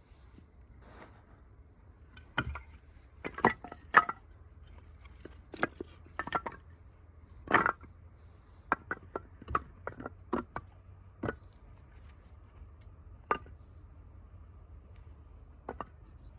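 Burning firewood crackling and popping: about fifteen sharp snaps at irregular intervals, thickest in the first eleven seconds and the loudest about four seconds in.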